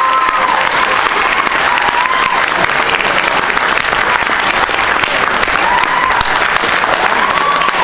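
Audience applauding steadily after a spoken-word poem, with a few voices whooping over the clapping.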